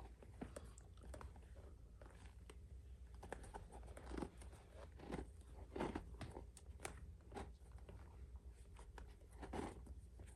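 Faint handling sounds of a rawhide leather lace being pulled through the lacing holes of a baseball glove's thumb: scattered short crackles and rubs of leather on leather, over a low steady hum.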